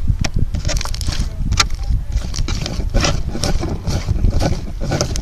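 Hands kneading sticky glitter slime, with a run of small wet clicks and squelches, over a steady low rumble.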